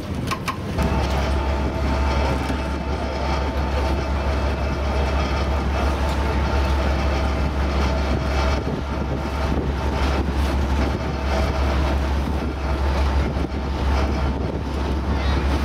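A ferry's diesel engine running steadily under way, heard from on board: a loud low drone with a steady hum above it, starting about a second in.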